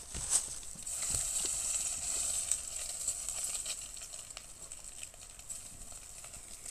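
Slices of fish ham sizzling in a small frying pan over a wood fire, with many small crackles and pops. The sizzling is strongest in the first couple of seconds and then eases off.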